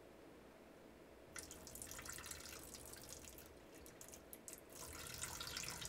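Excess rinse water pouring and trickling off a cooking pot over its anti-spill rim, starting about a second and a half in and getting louder near the end.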